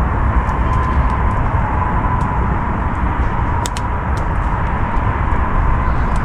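Steady roar of expressway traffic: a continuous rumble of passing cars and trucks, with a steady whine riding over it.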